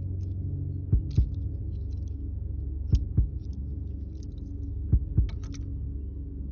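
Slow heartbeat sound effect: paired lub-dub thumps about every two seconds, three times, over a steady low drone.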